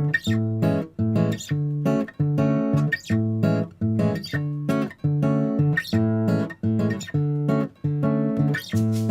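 Background music led by a strummed acoustic guitar, with a steady rhythm of chords and short breaks between strums.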